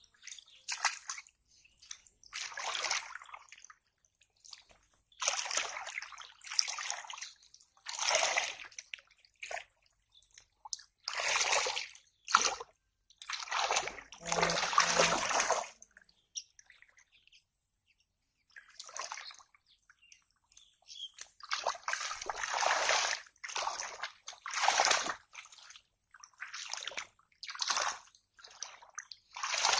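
Hands splashing and sloshing in shallow muddy water while groping for fish by hand, in irregular bursts of a second or so with short pauses between.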